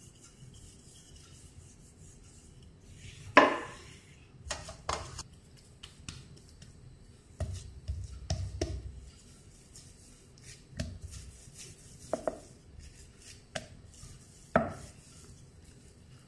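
Hands pressing and patting a soft coriander and gram-flour dough flat on an oiled wooden rolling board, with scattered knocks and soft thuds against the wood. A sharp knock about three seconds in is the loudest.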